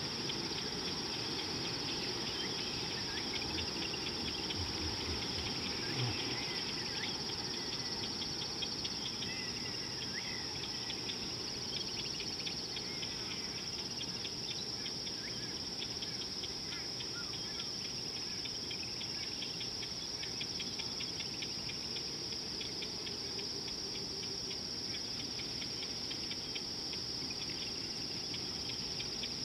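Steady high-pitched chorus of insects such as crickets, with a fast ticking running through it and a few short chirps now and then.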